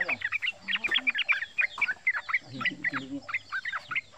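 Male yellow-vented bulbul singing a fast, unbroken chattering run of short, sharp downward-slurred notes, about six a second.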